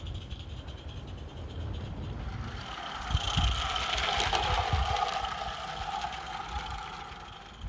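16mm-scale IP Engineering Jane live-steam locomotive running along garden railway track, growing louder as it passes close about three seconds in, then fading as it moves away. Low gusty wind rumble on the microphone underneath.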